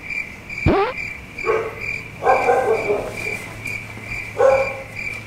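Crickets chirping steadily, about three chirps a second, while a dog yelps once and then barks three times.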